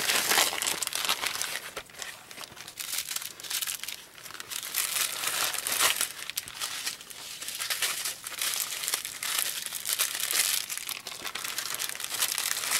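Plastic crinkling as small plastic packets of diamond painting drills are handled and packed into a zip-lock bag, an irregular run of crackles with a few brief lulls.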